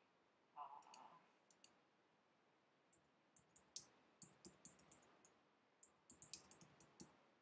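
Faint clicking of a computer mouse and keyboard: a scattered run of light clicks that bunch up near the end.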